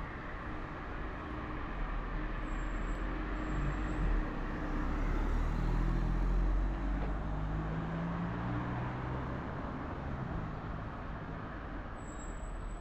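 Street traffic. A motor vehicle passes close by, its engine hum rising to its loudest about halfway through and then fading.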